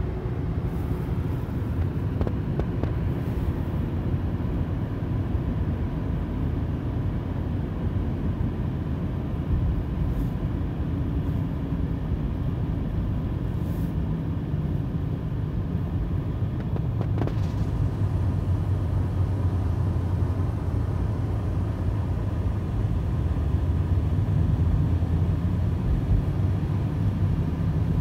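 Cabin road noise of a car cruising on a highway: a steady low rumble of tyres and engine, with a faint steady high tone above it.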